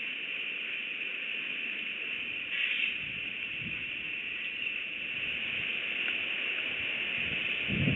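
Outdoor ambience at a bald eagle nest in a pine: a steady high hiss, a brief call-like sound about three seconds in, and faint low rustling as the eagle shifts among the nest sticks.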